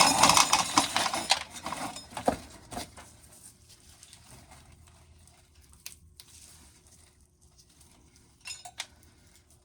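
Shelled dry corn kernels rattling and pattering into a metal coffee can, a dense clatter for the first second or two that thins out, then a few scattered clicks of single kernels near the end.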